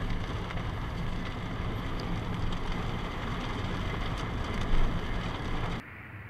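Rain falling on a car, heard from inside the cabin on a dash cam, as a steady hiss with scattered small ticks over a low hum, and one louder bump near the end. It cuts off suddenly to a much quieter outdoor sound.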